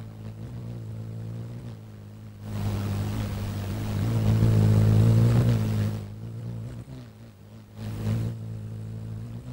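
Whirring hum of a hummingbird's beating wings that swells as the bird flies in, loudest a few seconds in, and again briefly near the end, over a steady low drone.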